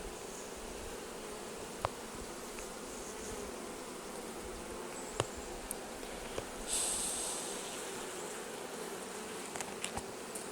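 Honeybees buzzing steadily around an open hive from a colony the beekeeper suspects has lost its queen, with a few sharp clicks and a brief hiss about seven seconds in.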